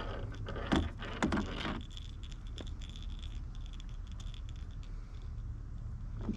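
Heavy fishing line and a metal bearing swivel being handled while a fisherman's knot is tied: small clicks, scrapes and line rubbing, busiest in the first two seconds and sparser after. A steady low hum runs underneath.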